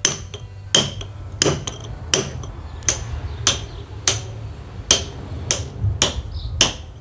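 Hand hammer striking a carving chisel into a block of stone: sharp, evenly spaced blows, about one and a half a second, in a steady working rhythm.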